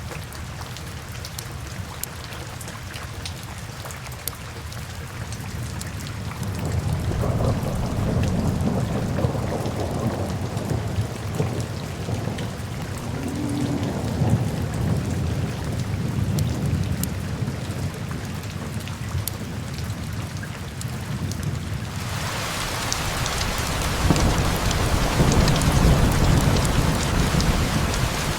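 Steady rain with thunder rumbling in long low swells, first about seven seconds in and again later. The rain turns heavier and louder about two-thirds of the way through.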